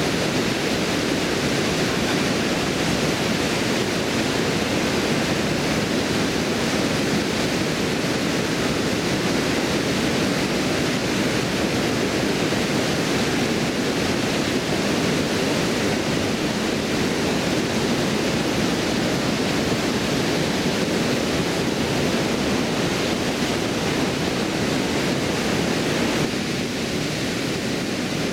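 Water pouring over a stone weir and rushing away downstream: a steady, unbroken rush of falling water, a little quieter near the end.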